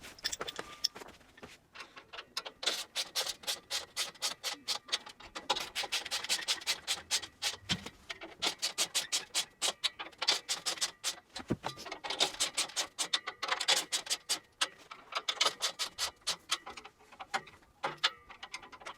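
Ratchet socket wrench clicking in repeated bursts of quick, evenly spaced clicks as the handle is swung back and forth, tightening the rack's bolts.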